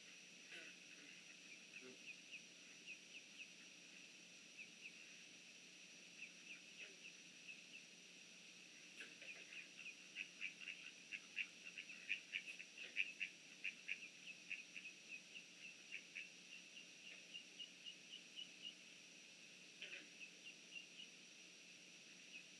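Young ducks peeping: a run of short, high peeps, some falling in pitch, that come faster and louder about halfway through and then thin out again.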